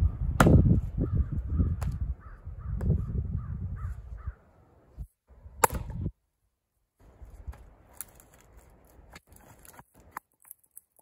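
Splitting maul striking a firewood round on a chopping block twice: a sharp crack about half a second in and another near the middle. Low rumbling wind noise on the microphone runs under the first few seconds.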